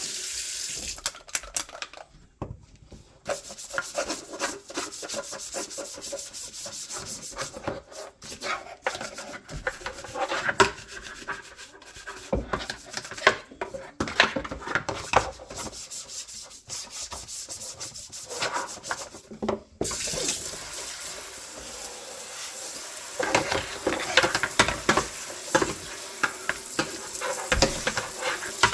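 Scrubbing and rubbing strokes on a dirty plastic fridge front cover (kick-plate grille) being washed in a sink. About two-thirds of the way in, a running tap adds a steady hiss under the scrubbing.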